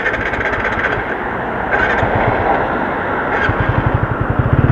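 Motorcycle engine running unevenly as it starves of petrol, its low firing pulses ragged at first. About three and a half seconds in they become fast and regular as the engine picks up again on the reserve fuel. A steady rush of wind and road noise runs underneath.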